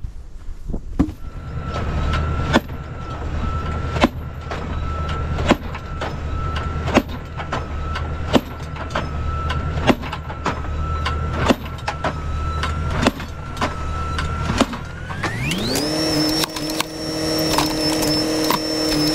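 Tractor-mounted Malone hydraulic post driver hammering a heavy wooden fence post into hard ground, a sharp blow about every one and a half seconds over the running tractor's engine and a steady whine. About 15 seconds in, the engine and whine rise quickly in pitch and stay high.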